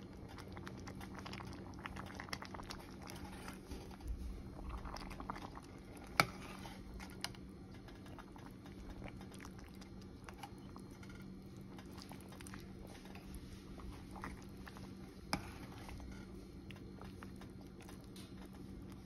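A spoon stirring a pot of thick vegetable rice porridge: soft wet squelching and patter, with two sharp clicks of the spoon against the pot, one about six seconds in and one about fifteen seconds in. A steady low hum runs underneath.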